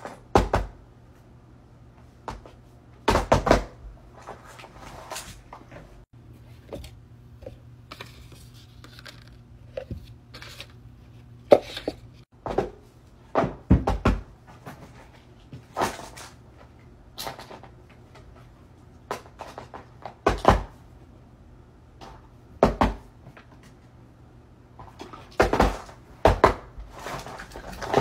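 Fidget toys being set down, picked up and shuffled by hand on a paper board over carpet: a run of irregular knocks and thumps with light handling rustle, over a faint steady low hum.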